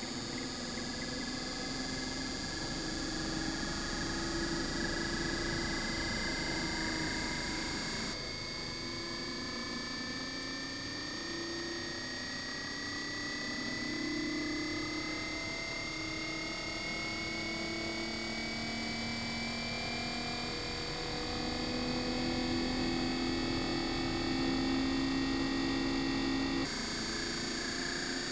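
Inverter air conditioner outdoor unit running, its compressor giving an electronic whine that climbs slowly in pitch as the drive speeds up. The sound changes abruptly about 8 seconds in and again near the end.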